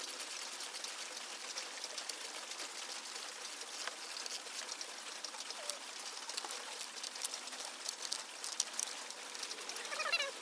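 Steady background hiss with scattered light clicks. A short bird-like chirp comes near the end.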